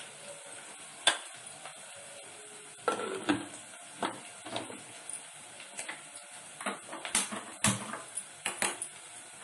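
Steel cookware clattering: a dozen or so sharp metal clinks and knocks at uneven intervals as pans, lids and a spoon are handled. The loudest knock is about a second in.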